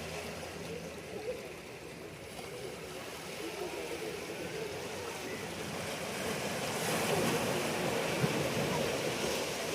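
Moving water, a steady rushing and lapping noise that grows louder about seven seconds in.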